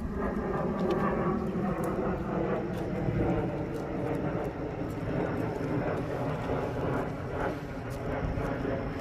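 A vehicle's engine running with a steady drone.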